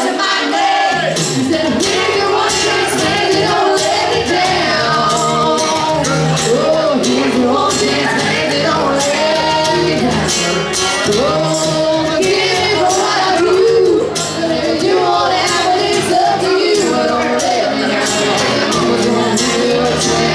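Live acoustic country music: acoustic guitar strumming under women's voices singing, with light hand percussion keeping a steady beat.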